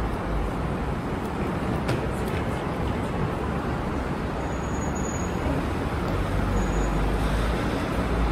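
Steady road traffic along an airport pickup curb, a continuous rumble of buses, shuttles and cars running nearby.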